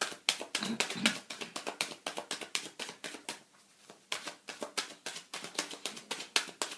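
Tarot cards being shuffled by hand, a rapid run of papery card flicks that pauses for a moment about halfway through, then picks up again.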